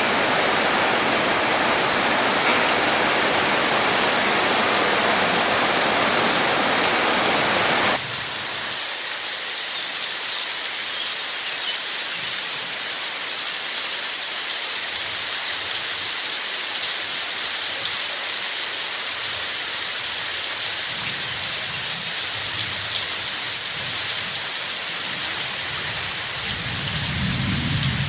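Steady rain. About 8 seconds in it changes suddenly from a louder, fuller hiss to a lighter, thinner patter, and a low rumble builds near the end.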